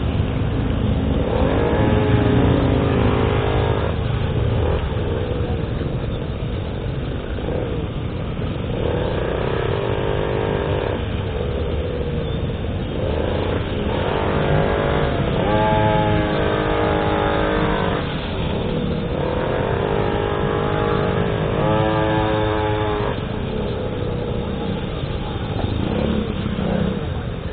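Small-engine goped scooter riding in traffic: a high-pitched little engine running under steady road and wind noise, climbing in pitch several times as it accelerates.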